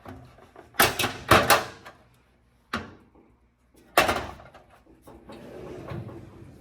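Drawers of a metal toolbox being opened and shut: a cluster of sharp metallic clacks about a second in, another near three seconds, and a loud one at four seconds that rings briefly.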